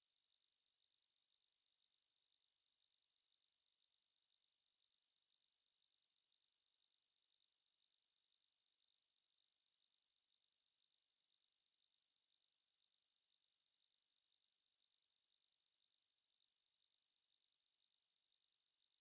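A steady, unbroken 4173 Hz sine-wave test tone: one high, pure pitch held at a constant level.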